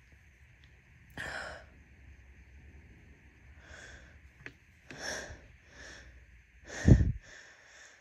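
A woman's sniffs and short breaths through an itchy nose while inducing sneezes, ending in one loud sneeze about seven seconds in.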